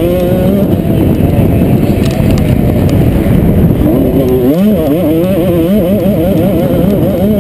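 Motocross bike engine heard from a helmet camera while racing on a dirt track, running hard with its pitch rising and falling on the throttle. About four and a half seconds in the engine note dips briefly, then climbs sharply and wavers.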